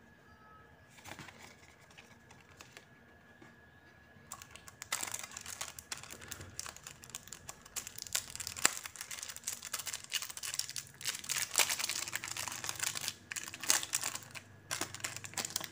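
Clear plastic packaging crinkling and crackling in the hands as it is worked around a round pin badge, a dense run of small crackles starting about four seconds in.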